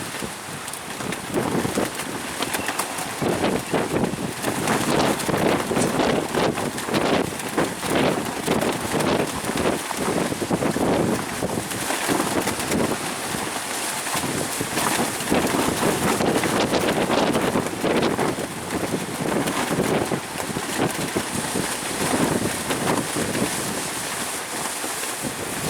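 Strong wind buffeting the microphone in uneven, gusting blasts.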